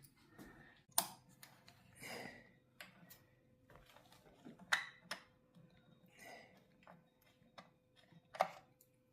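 Faint, scattered clicks and short scrapes of a hand tool working at a small screw that holds a cuckoo clock's bellows, about five sharp clicks in all.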